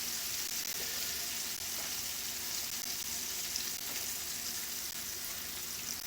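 Breaded shrimp sizzling steadily in hot oil, the pan's leftover heat finishing them after the burner has been turned off. A few faint light clicks sound over the steady hiss.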